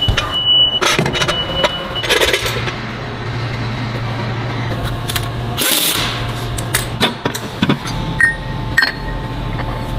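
Workshop machinery sounds: an electric motor on a test rig runs with a steady low hum. Sharp metallic clicks and clanks come from steel drill-bit parts being handled and fitted, most of them in the second half.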